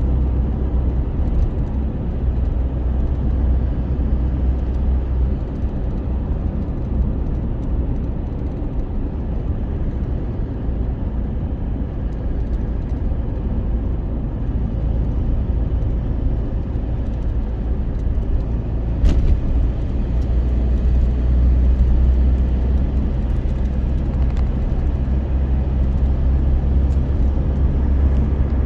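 A vehicle running with a steady low rumble, and a single sharp click about nineteen seconds in.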